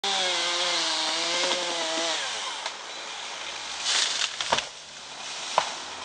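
Chainsaw running at high revs, then the throttle is let off about two seconds in and its note drops away. A brief rush of noise and two sharp knocks follow near the end.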